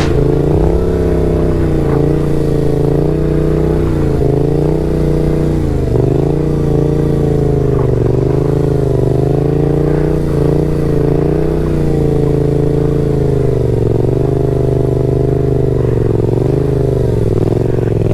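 Yamaha XSR700's 689 cc CP2 parallel-twin engine running at low revs under steady throttle, the pitch dipping and recovering every second or two as the throttle is worked to hold slow wheelies; the revs climb sharply near the end.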